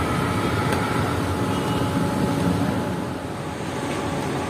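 Steady rumbling noise with a faint hum, broken once by a sharp click a little under a second in.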